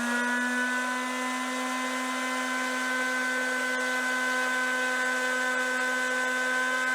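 Electric palm sander running at full speed with a steady whine, sanding an oak spline down toward flush with the chair leg.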